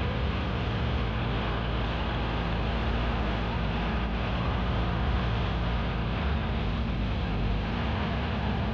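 Steady engine rumble and road noise from a moving vehicle, with wind noise on the microphone.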